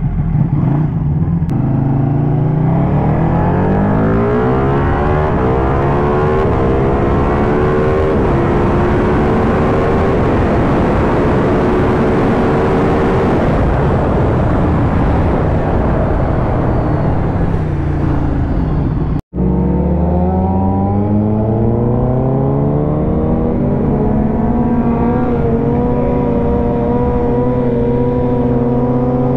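Superbike engine accelerating hard, its pitch climbing and then holding high under strong wind rush. It breaks off for an instant about two thirds of the way through, then climbs again to a high steady pitch.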